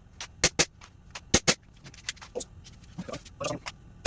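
Airsoft Glock 19 blowback pistol firing: sharp cracks in two quick pairs about a second apart, then softer knocks near the end.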